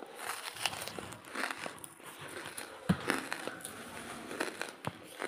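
Dry charcoal pieces crunching and crackling as they are broken, with a sharper crack about three seconds in and another near the end.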